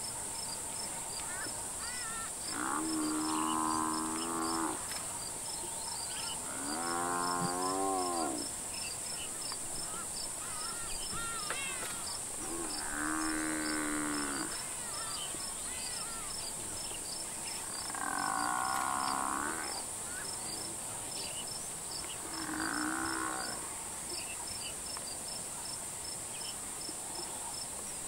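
An African buffalo under attack by lions bellows in distress: five drawn-out, pitched bawls a few seconds apart, the second wavering in pitch. Behind them runs a steady high buzz and regular ticking of insects.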